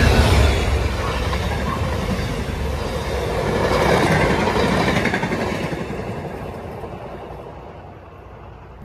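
Passenger train passing on the rails, loud at first, then fading away over the last few seconds as it moves off.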